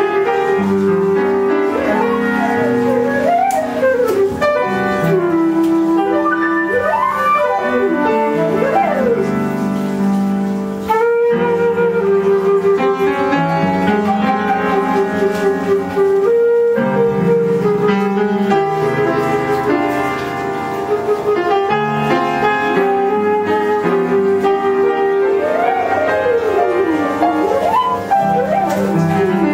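Live jazz: a flute plays the lead line, with held notes and quick runs up and down, over piano chords and upright bass.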